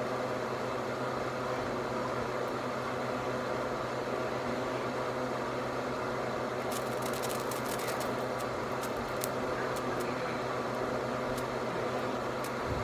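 A steady motor hum with a constant low drone. About halfway through comes a run of faint, irregular clicks lasting several seconds.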